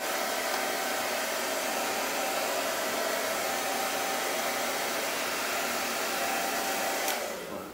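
Handheld hair dryer blowing steadily, a rush of air with a faint motor whine, dying away near the end.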